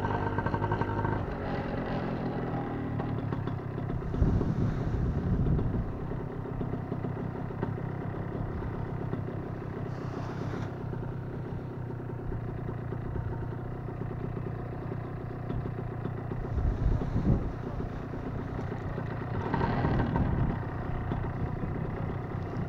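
Paramotor engine running at a steady idle, with a few brief louder rushes of noise.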